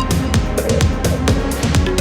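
Electronic dance music with a fast, steady beat.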